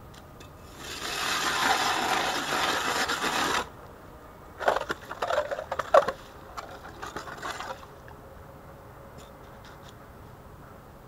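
Hand ice auger (a Zhytomyr 130 mm) drilling through lake ice topped with overflow ice: a steady grinding scrape for about three seconds, then, after a short pause, a few seconds of uneven scrapes and sharp knocks from the blades and ice chips.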